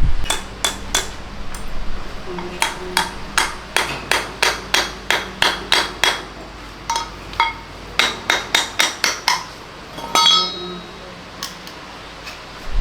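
Repeated hammer taps on metal, about twenty sharp knocks each with a short metallic ring, in runs of two or three a second. They come as a scooter's starter motor is knocked apart to get at its carbon brushes.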